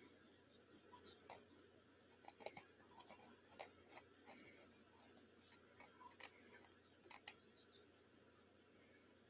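Near silence, broken by faint, scattered small clicks and light paper rustles from paper strips and card being handled on a tabletop.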